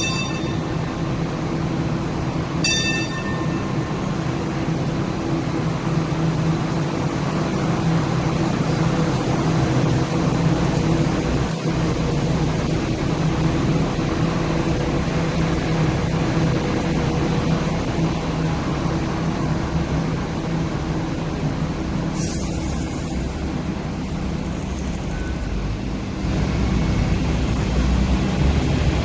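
Hong Kong Light Rail Phase 1 light rail vehicles humming steadily at a stop, with a short ringing chime about three seconds in and a brief hiss about 22 seconds in. Near the end the rumble grows louder as the train runs along the track.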